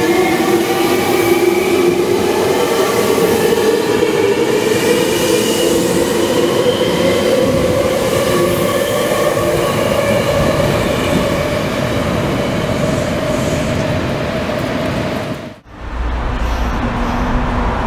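Electric commuter train pulling out of the station, its traction motors whining in several tones that rise slowly in pitch as it gathers speed, over wheel-on-rail noise. Near the end the sound cuts off suddenly and gives way to a low rumble.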